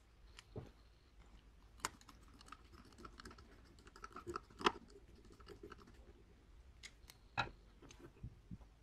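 Scattered faint clicks and light metallic taps from a small metal lawn-mower carburetor being handled and worked with a screwdriver on a wooden bench, the sharpest tap about halfway through.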